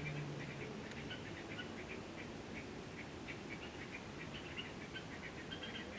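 Faint, rapid, irregular high chirping, like small birds, with a steady low hum from a transformer soldering gun that fades out about half a second in.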